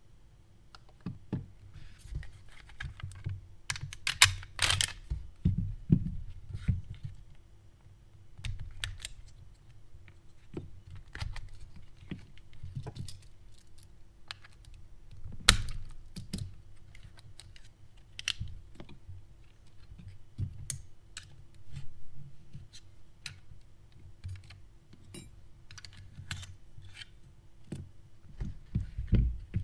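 Scattered clicks, taps and light clatter as a Glock 34 Gen 5 MOS pistol is handled and worked on with small tools: polymer and steel parts clicking together, and tools and parts set down on the mat. The sharpest clicks come about four to five seconds in and about fifteen seconds in, with a cluster of clatter near the end.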